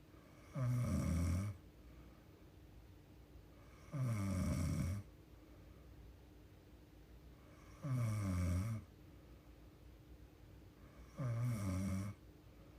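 A young woman snoring in her sleep: four snores, each about a second long, coming every three to four seconds, with a faint steady hum in the quiet between them.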